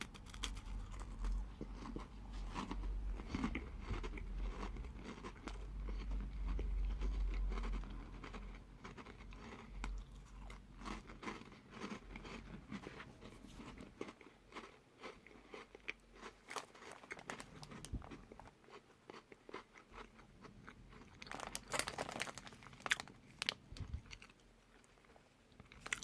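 A person biting into and chewing a crisp Tuc cracker biscuit close to the microphone. The crunching is loudest in roughly the first eight seconds, then eases to quieter chewing, with a few louder crunches again about 21 to 23 seconds in.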